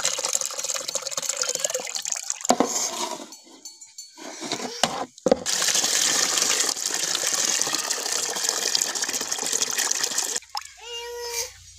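Water sloshing as soaked urad dal is rubbed and washed by hand in a metal basin. From about halfway in, a steady stream of water pours into the frothy basin for about five seconds, stopping shortly before the end.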